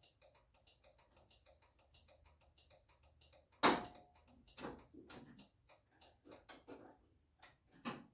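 Hazard-light flasher ticking fast and evenly, about four ticks a second, on a 1926 Ford Model T's newly wired lights. A few louder knocks fall among the ticks, the loudest a little past halfway.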